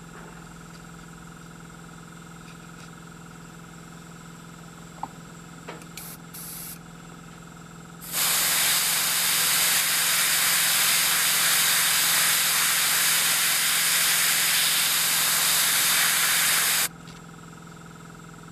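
Airbrush spraying paint through a stencil onto a fishing lure: a steady hiss of air and paint that starts abruptly about eight seconds in, holds for about nine seconds and cuts off sharply.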